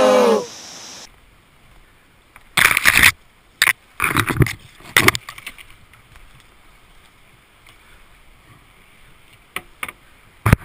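A song cuts off within the first second. Then come a few short scraping, rustling bursts, mostly about two and a half to five seconds in and again near the end, from a kayak and gear being carried through dry scrub and grass.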